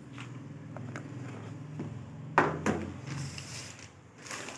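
Handling and rustling noises with one sharp knock a little past halfway, over a steady low hum.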